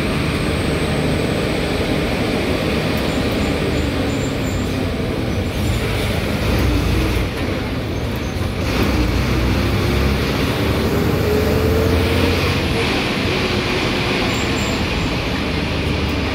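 KSRTC bus's diesel engine running and road noise, heard from inside the driver's cab. The engine note rises slightly in pitch a little past the middle.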